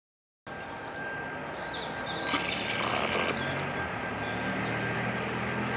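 Steady distant jet-engine noise with a thin steady whine from a taxiing Airbus A380 prototype, with small birds chirping over it. A brief burst of hiss comes about two and a half seconds in.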